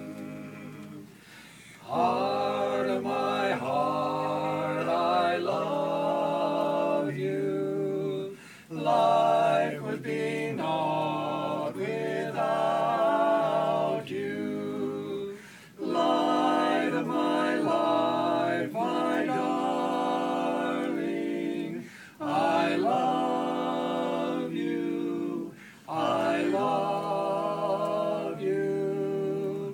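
Barbershop quartet singing a cappella in close four-part harmony, in phrases of held chords with short breaks between them. The first couple of seconds are quieter before the full singing comes in.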